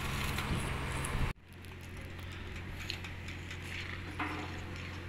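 Welding crackle and hiss at the excavator's steel boom mount over a low engine hum, cutting off abruptly about a second in. Then a quieter steady low hum with a few light knocks and clinks as steel pipes are handled against a pole.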